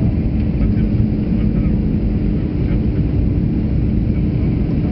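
Airliner cabin noise during the descent on approach: the steady rumble of the jet engines and airflow, with a steady low hum running through it.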